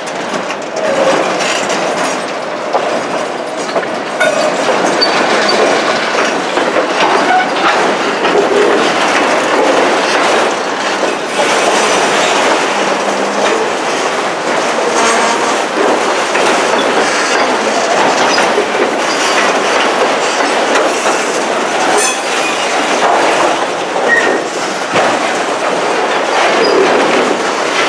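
Cars of a CN freight train rolling past at close range, a steady rumble with the wheels clacking over rail joints.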